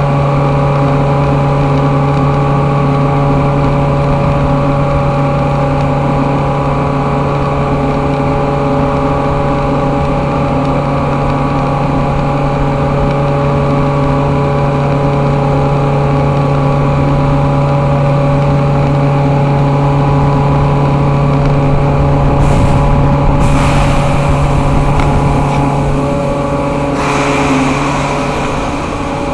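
Loud, steady hum of running industrial machinery, a constant low tone with many even overtones. Two brief rushing noises come in near the end.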